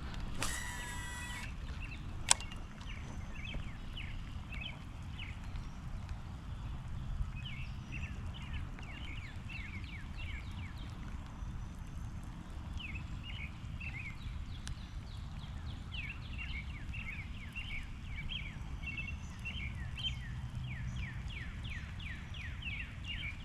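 Small birds chirping in quick runs of short, falling notes over a steady low rumble. About half a second in comes a brief whir lasting about a second, then a single sharp click.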